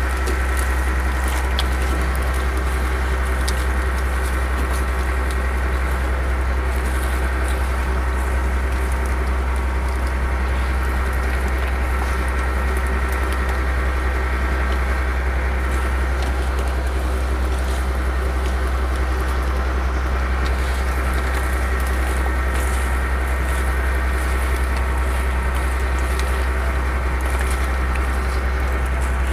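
Fishing boat's engine running steadily with a constant low hum. Light clicks and scrapes come through over it as the catch is sorted by hand on the wooden deck.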